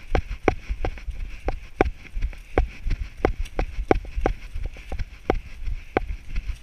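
A runner's footsteps on a dirt forest trail, heard from a body-worn camera: a sharp knock with each stride, about three a second, in a steady running rhythm. A low rumble of wind on the microphone runs underneath.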